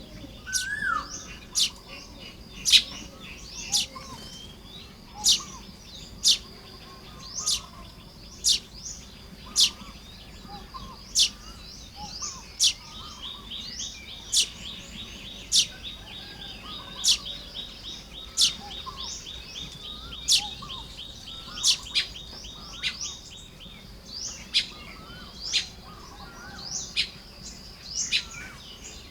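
A colony of baya weavers calling while building nests. Sharp chirps come about once a second, and a long, rapid, buzzing chatter runs through the middle, with softer twittering underneath.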